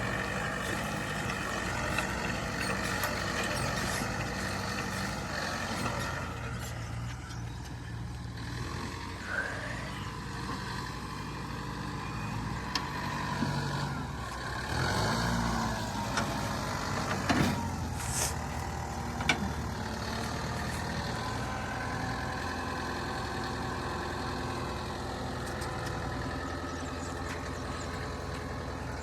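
Heavy diesel machinery engines running steadily, from a backhoe loader and farm tractors, with a few sharp knocks about two-thirds of the way through.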